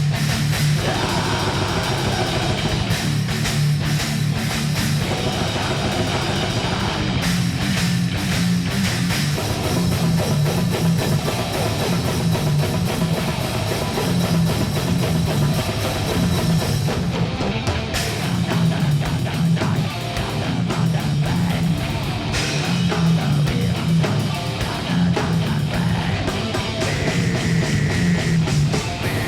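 Heavy rock music: distorted electric guitars and a drum kit playing steadily at full volume.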